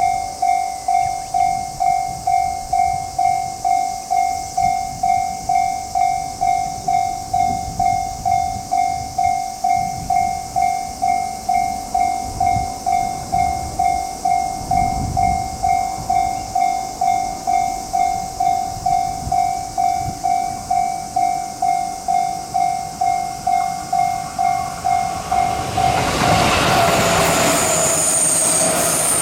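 Japanese railway level-crossing alarm ringing, an electronic two-tone ding repeating about one and a half times a second while the crossing is closed. About 26 seconds in, a train reaches the crossing and its running noise, with a high squeal, swells up and covers the alarm.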